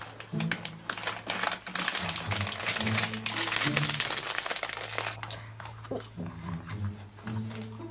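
A plastic packet crinkling and crackling as it is squeezed in the hands, for about five seconds, then fading to a few scattered crackles. Background music with a steady low bass note runs underneath.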